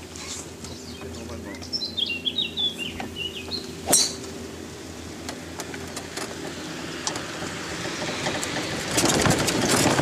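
Birds chirping, a run of quick high chirps about two seconds in, over a steady low mechanical hum. A sharp click comes about four seconds in, and a rush of noise swells near the end.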